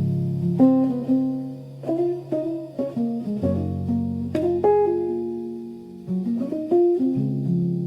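Music: a guitar plucking a slow melody over sustained low bass notes.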